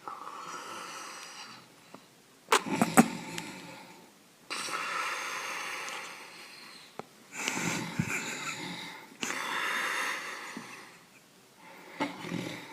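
A person snoring: a run of breathy snores in and out, each a second or two long. A few sharp clicks come about two and a half seconds in.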